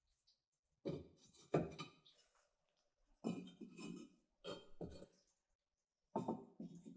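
A series of sharp clinks and knocks, about eight in all and mostly in pairs, as small hard objects are handled and set down, each with a brief ring.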